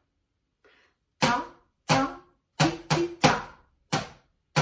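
A plastic laundry-detergent bucket played as a drum with drumsticks, its top covered by a rubber sit spot to soften the sound: about seven short hits in a simple rhythm, evenly spaced apart from a quick pair in the middle.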